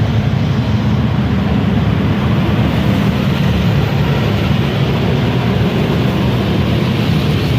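Steady, loud low rumble with a noisy hiss above it. It runs evenly with no breaks or distinct hits.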